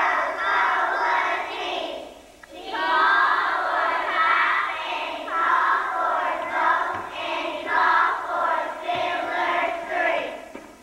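A group of young children singing together, with a short break about two seconds in; the singing stops just before the end.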